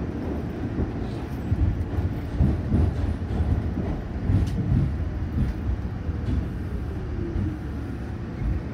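Steady rumble of a New York City R46 subway car running, heard from inside the car: wheels on the rails with a few faint clicks, and a faint falling whine about two-thirds of the way through.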